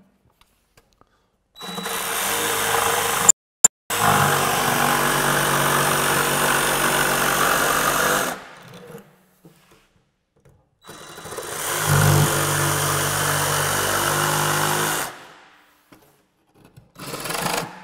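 DeWalt DCS331 18V XR cordless jigsaw sawing through a sheet of board with a flush-cut blade. It runs at a steady speed in two stretches, starting about a second and a half in, with a brief break near the start. It then stops and starts again for a shorter second cut.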